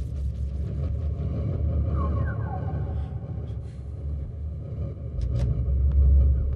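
Dramatic background score: a low rumbling drone that swells near the end, with a few faint falling tones and scattered soft clicks.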